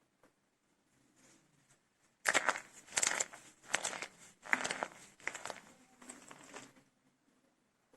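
Dried soap cups made with starch being crushed and crumbled by hand: a run of crunchy, crackling bursts starting a little over two seconds in and stopping near the end.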